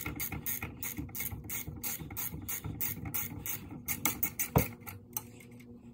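Hand ratchet wrench clicking steadily, about five clicks a second, undoing the lower bolt of a golf cart's front shock absorber. There is a single louder knock about four and a half seconds in, and the clicking stops shortly after.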